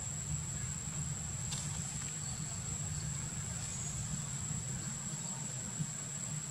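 Steady outdoor ambience: a continuous high-pitched insect drone over a low rumble, with one faint click about a second and a half in.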